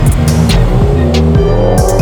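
Background music: an electronic track with a heavy bass line and a steady beat. A rising synth sweep begins near the end.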